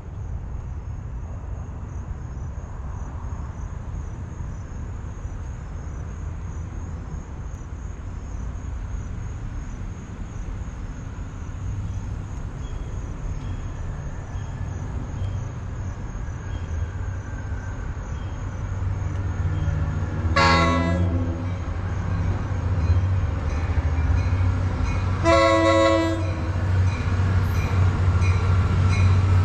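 NJ Transit GP40PH-2B diesel locomotive approaching, its EMD two-stroke V16 engine a low rumble that grows steadily louder. The horn sounds twice in the last third, two short blasts a few seconds apart, the second slightly longer.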